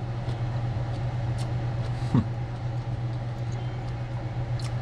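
Steady low machine hum with a few faint steady tones above it. About two seconds in there is a short sound that falls in pitch, and a few faint clicks.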